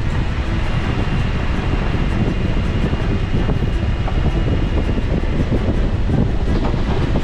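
Vehicle driving on a gravel road: a steady low rumble with constant small rattles and crunching.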